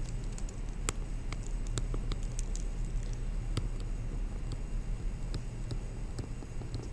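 Light, irregular clicks and taps of a stylus on a tablet screen while words are handwritten, over a steady low hum.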